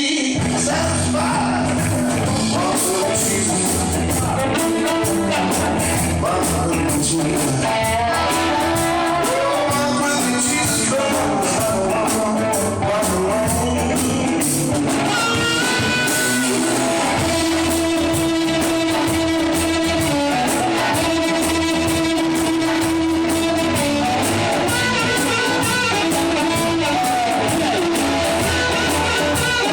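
Live blues band playing a song: singing over guitar and a drum kit, with a steady beat and some long held notes in the middle.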